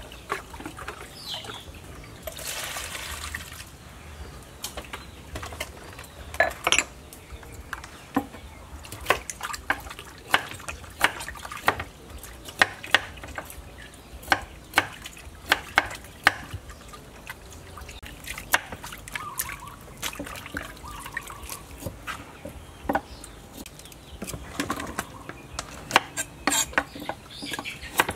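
Kitchen knife chopping on a wooden cutting board: a run of sharp knocks, about one or two a second, thickest in the middle. Underneath, water sloshes and trickles as raw beef is washed by hand in a plastic bowl.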